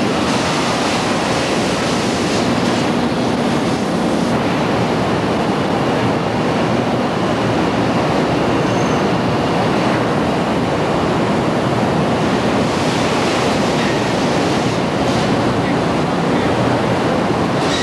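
Loud, steady din of factory machinery and ventilation on an industrial shop floor, a continuous even rush with no pauses.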